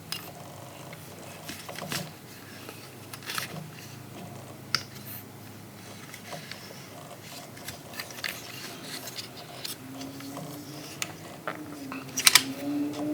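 Hard plastic parts of a Transformers action figure clicking and scraping as they are handled, in scattered sharp clicks, with the loudest cluster of clicks near the end. A low, slowly rising tone comes in during the last few seconds.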